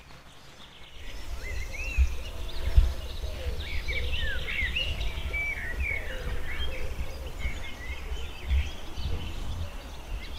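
Several birds singing and chirping, beginning about a second in, over a low rumble, with two thumps about two and three seconds in.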